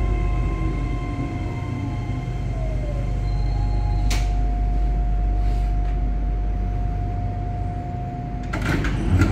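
Ride inside a moving electric train: a steady deep rumble with a steady electric whine over it, and falling whines in the first few seconds. A sharp click about four seconds in and a short run of clattering knocks near the end.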